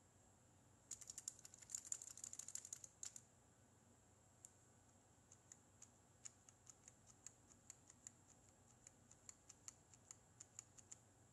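Computer keyboard keys being pressed: a quick run of keystrokes for about two seconds as the text field is cleared, then single, evenly paced keystrokes about three a second as digits are typed in.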